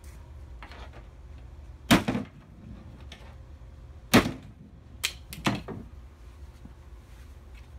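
Hammer blows striking safety glasses on a wooden workbench in an impact test: two hard, sharp hits about two seconds apart, then two lighter knocks half a second apart.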